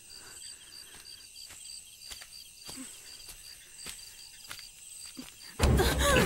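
Night insects chirping steadily, about four high chirps a second, with a few soft knocks and rustles. Near the end a woman's cry and music come in suddenly and much louder.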